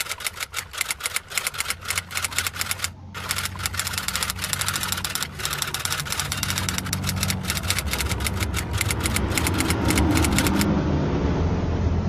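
Rapid typewriter-style clicking from a slide's typewriter text animation as a line of text types out, with a short break about three seconds in. The clicking stops near the end, leaving a low steady hum that has been underneath throughout and gets louder toward the end.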